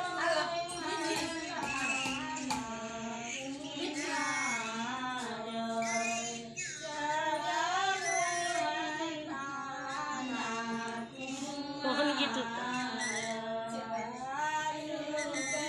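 Women singing a mangal geet, a traditional auspicious wedding folk song, with a continuous melody of long notes that rise and fall.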